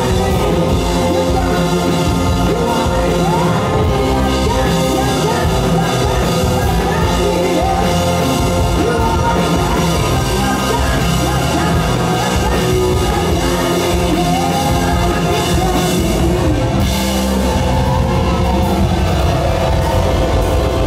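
Live garage rock band playing loud: drums, electric guitar and keyboard, with a woman singing into a microphone.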